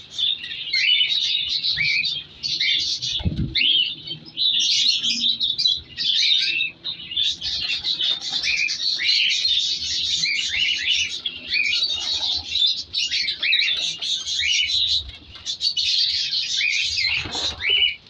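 A cage full of cockatiels chirping, many short overlapping calls without a break, with a low thump about three seconds in.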